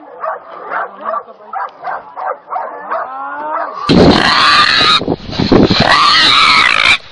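Hunting dogs barking in quick repeated barks at a cornered wild boar. About four seconds in, a sudden much louder, harsh squealing takes over: a wild boar screaming as a dog holds it.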